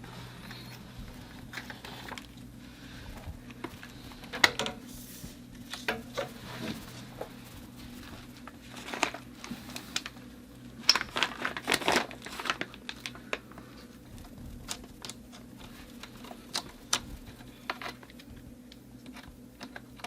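Irregular clicks, knocks and rustling of hands working PEX tubing, fittings and tools, busiest about four seconds in and again around eleven to twelve seconds, over a low steady hum.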